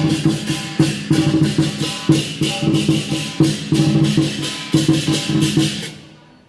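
Chinese lion dance percussion: drum and clashing cymbals played in a quick, steady beat, dying away near the end.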